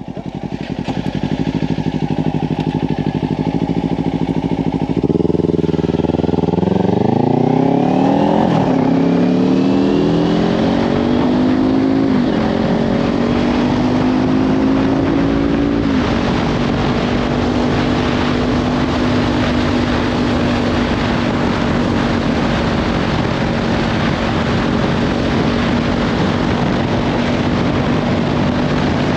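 Kawasaki Ninja 500 parallel-twin engine with a Leovince slip-on exhaust idling, then pulling away about five seconds in. It revs up through three upshifts and settles into a steady cruise, with wind noise on the microphone.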